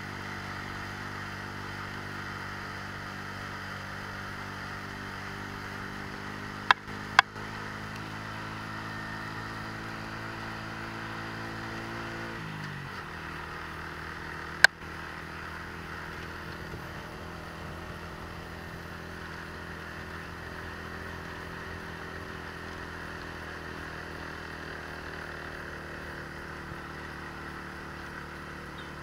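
Motorcycle engine running steadily while riding. Its pitch drops about halfway through, then it runs on at lower revs. Three sharp knocks cut through: two close together about a quarter of the way in, and one about halfway.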